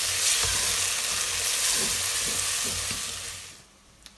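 Onion, tomato and ground-spice masala sizzling in hot oil in a pot as it is stirred. The sizzle cuts off about three and a half seconds in.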